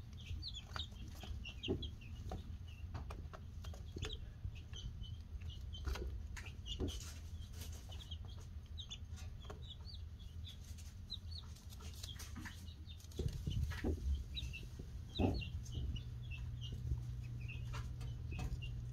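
Baby Polish chicks peeping: many short, high chirps, one after another, over a steady low hum, with a few soft knocks and rustles about two-thirds of the way through.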